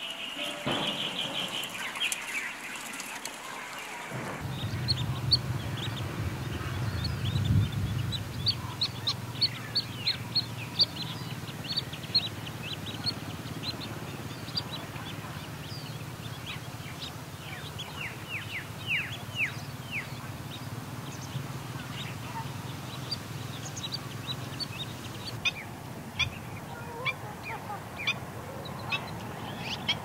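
Black-winged stilts calling: many short, sharp calls in quick succession, each falling in pitch, thickest through the middle and thinning out, with a few more near the end. A low steady hum runs beneath from a few seconds in.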